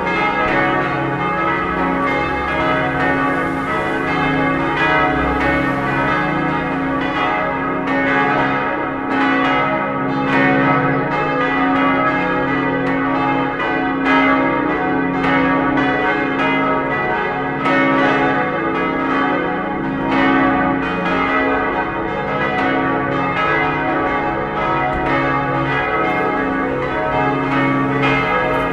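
Church bells of a five-bell peal, tuned D♭, E♭, G♭, A♭ and B♭, swinging together in full ring. Their strokes overlap in a dense, continuous stream, each one ringing on.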